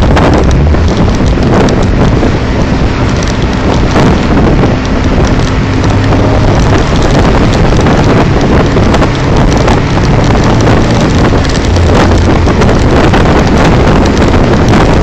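Loud wind buffeting a phone's microphone in an open-top convertible on the move, with the car's engine and road noise underneath.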